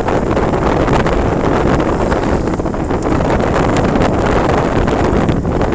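Wind buffeting the microphone, a loud, steady rushing noise.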